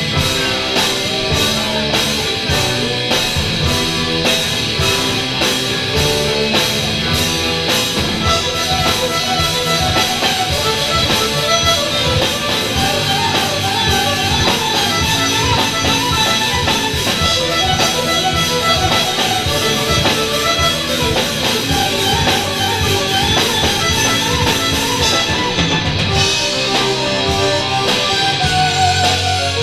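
A live folk-metal band playing loudly, with electric guitars, a drum kit and a lead melody line, and no singing. Near the end the cymbals drop out.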